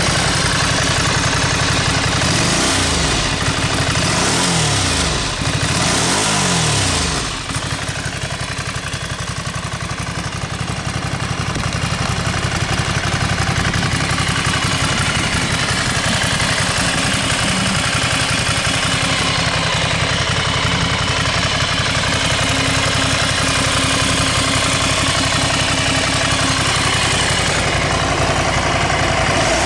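Ducati Scrambler Sixty2's 399 cc air-cooled L-twin running through its stock exhaust: three quick throttle blips in the first seven seconds, then a steady idle.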